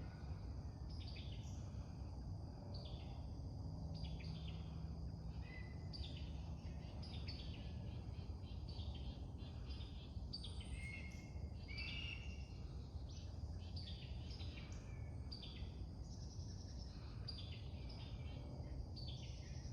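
Birds chirping and singing, short calls coming every second or so, over a steady low rumble.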